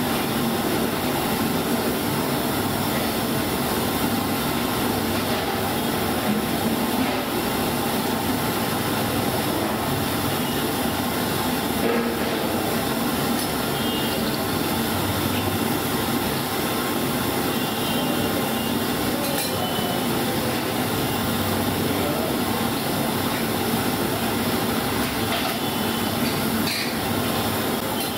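Steady, loud roaring noise of a street-food cooking stall, with a few faint metal clinks from utensils.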